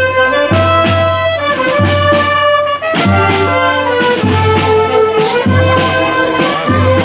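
Charanga street band playing a tune: clarinets, saxophones and brass over a steady drum beat.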